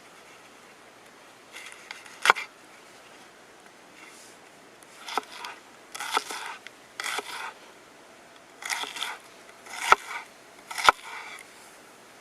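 Knife cutting vegetables on a cutting board: short bursts of slicing and scraping, about five of them ending in a sharp knock of the blade on the board.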